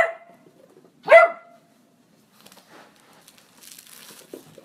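A small dog gives one short bark about a second in. Then comes faint scratching and rustling as a chihuahua digs at the fabric seat cushion of an upholstered armchair.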